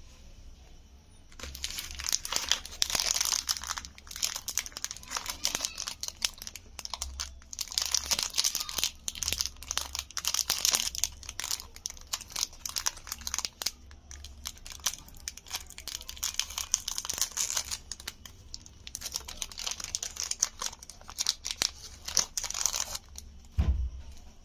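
Plastic wrapper of a Chupa Chups Sour Belt soft candy being crinkled and torn open by hand. The crackling comes in several spells with short pauses between them.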